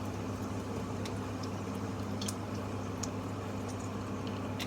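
Kitchen food preparation: scattered small wet squishes and clicks over a steady low hum.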